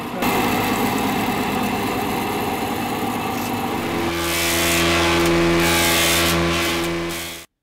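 Woodworking power machinery running steadily. About four seconds in, a deeper humming machine note joins it with a rising hiss, then the sound cuts off abruptly.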